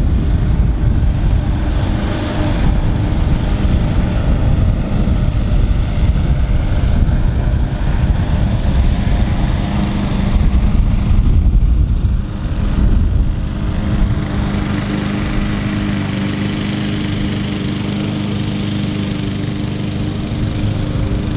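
A small engine running steadily, the drone of turf-maintenance machinery working the course.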